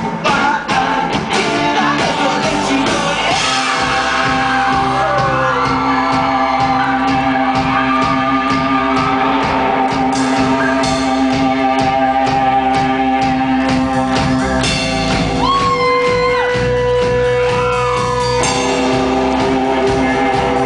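Live rock band playing loudly in a large hall: semi-hollow electric guitar and drums with shouted singing over long held notes.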